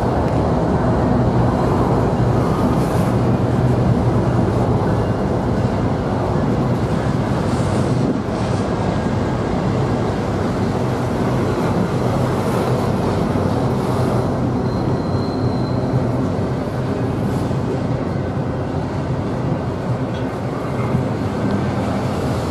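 Double-stack intermodal freight train's well cars rolling past: a steady rumble of steel wheels on rail, with a few scattered clanks.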